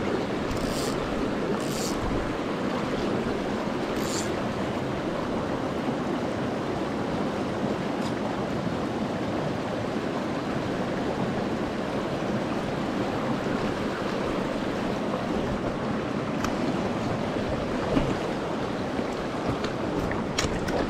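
Small rocky mountain creek running over stones: a steady rush of shallow flowing water. A few faint short scrapes sound in the first four seconds and a small knock near the end.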